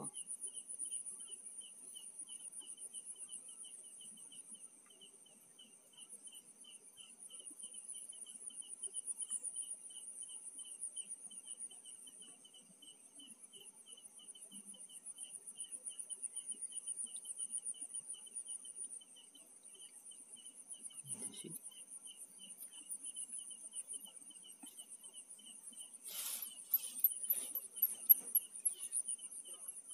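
Crickets and other insects calling steadily at night: a continuous high trill with a regular pulsing chirp beneath it. A brief low thump comes about two-thirds through, and near the end a run of sharp rustles and crackles as leafy plants are handled.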